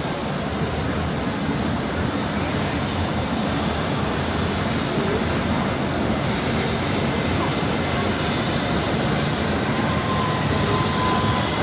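Steady aircraft engine noise, an even rushing din with a constant high whine.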